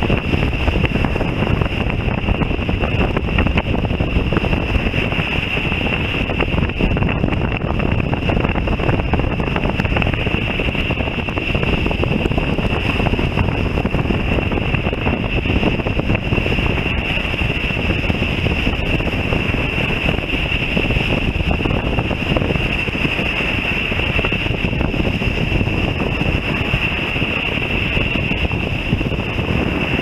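Wind buffeting the microphone outdoors, a steady noisy rush, with a thin steady high-pitched whine running under it.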